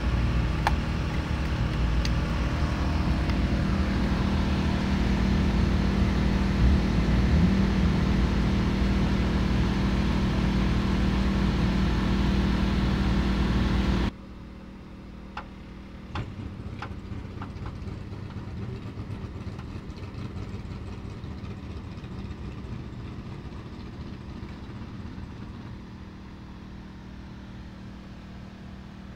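An engine running steadily at idle, cutting off abruptly about halfway, leaving a quieter background with a few light clicks.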